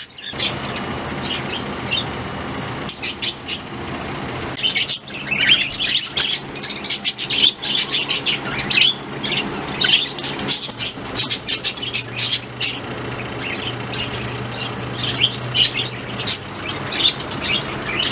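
Budgerigars chirping and squawking in quick clusters of short, high calls, over a steady low hum.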